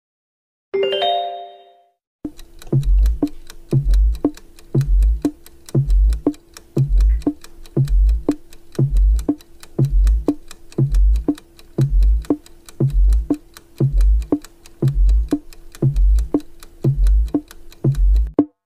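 Quiz countdown-timer music: a brief chime, then a clock-like ticking several times a second over a deep beat once a second and a held low note. It stops just before the end.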